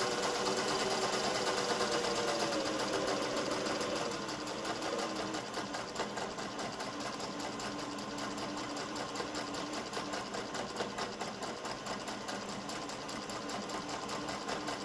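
Singer 401A slant-needle sewing machine running at a steady speed, stitching a cam-driven diamond pattern at wide stitch width: the motor whirs under a fast, even needle ticking. It is a little louder for the first few seconds, then settles slightly softer.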